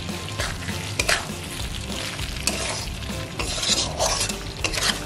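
Metal spatula stirring chicken liver and gizzard pieces in a wok, scraping against the pan in irregular strokes, with a steady sizzle of the masala frying over the flame. The scrapes are loudest about halfway through and near the end.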